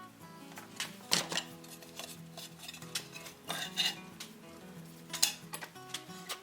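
Soft background music of held notes, with scattered sharp metallic clinks and taps, the loudest about a second in, near four seconds and near five seconds.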